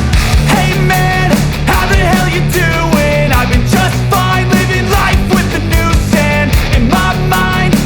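Loud rock music with a steady beat and a melodic lead, possibly with vocals.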